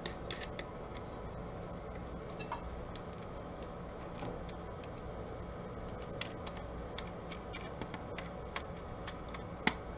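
Light, irregular clicks and taps of small metal wing nuts being spun onto the blaster's tension rods against its plastic end cap, with one sharper click near the end.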